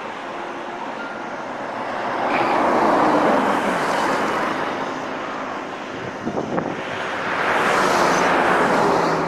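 Road traffic: two vehicles pass close by one after the other, each swelling up and fading, the louder passes about three and eight seconds in, with a few brief clicks in between.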